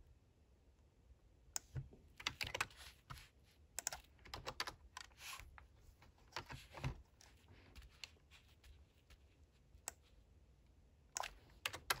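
Typing on a low-profile computer keyboard: runs of soft key clicks, quick and dense from about two seconds in, thinning out after about seven seconds, then a short flurry near the end.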